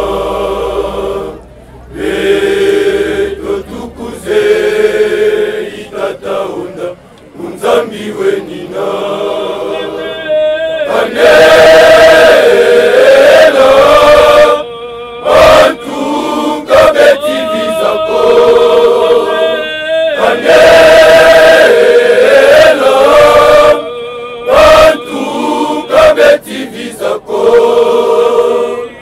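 A men's church choir singing a hymn in unison, in phrases broken by short pauses. The singing gets louder about a third of the way in, with one wavering voice standing out.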